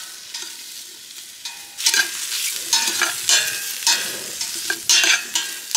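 Chorizo slices sizzling as they brown in a dry stainless steel stockpot, no oil added. From about two seconds in, metal tongs turning them clink and scrape against the pot again and again, with a short metallic ring.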